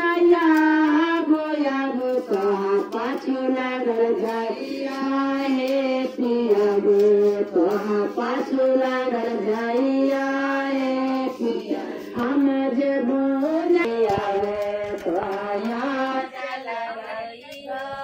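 Women singing a song together, one melody carried in held, sliding notes, with a microphone picking up the lead voice.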